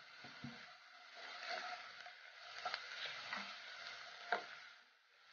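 Onions, curry leaves and spices frying faintly in a non-stick pot while being stirred with a wooden spatula, the spatula knocking against the pan a few times.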